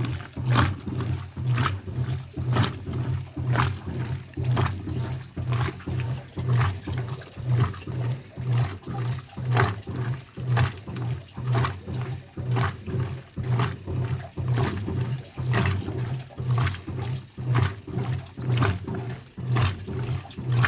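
Washing machine agitating through its flywheel (pulley) drive transmission: a low motor hum that pulses with each stroke and a sharp clack about once a second, the 'chaca chaca' noise.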